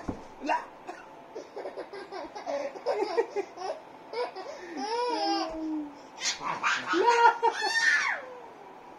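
Baby laughing in short repeated bursts, loudest about seven to eight seconds in.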